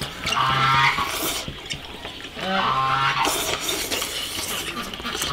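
People slurping hot soup from small bowls. Two long hummed "mmm" sounds of enjoyment come about half a second in and again about two and a half seconds in, each followed by a short slurp.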